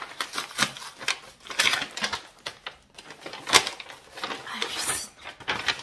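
A parcel being unwrapped by hand: packaging rustling and crinkling in quick, irregular crackles, the loudest about three and a half seconds in.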